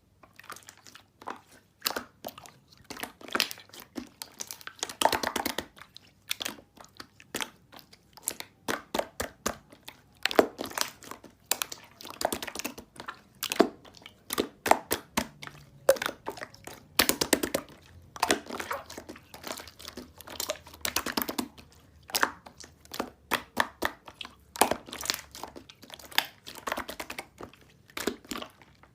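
Irregular close crunching and crackling, sharp crackles coming in dense clusters every few seconds with short gaps between.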